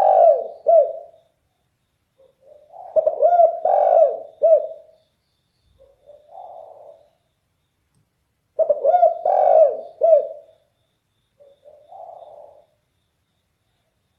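Spotted dove (derkuku) cooing in a deep, loud voice: phrases of rolling coos about two seconds long, repeating roughly every six seconds, each followed by a softer, shorter coo.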